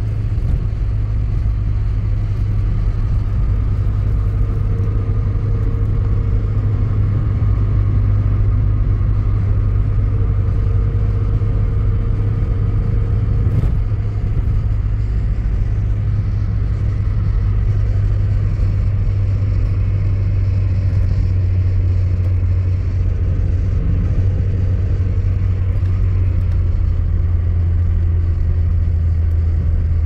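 Steady low rumble of a car driving at road speed, heard from inside the cabin: engine and tyre-on-road noise.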